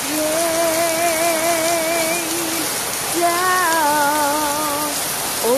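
Steady rain from a strong shower, with a woman's voice singing two long held notes with vibrato over it, the second starting about three seconds in.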